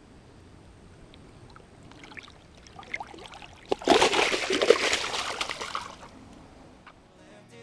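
Water splashing and dribbling, with a few small splashes about two to three seconds in, then a loud burst of splashing for about two seconds that fades away.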